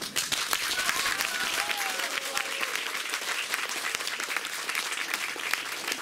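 Audience applauding, with dense, steady clapping and a brief voice calling out about a second in.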